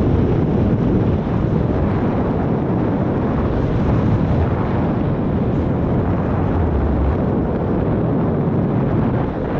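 Wind rushing over the microphone of a paraglider pilot's camera in flight: a loud, steady, low rush of air buffeting.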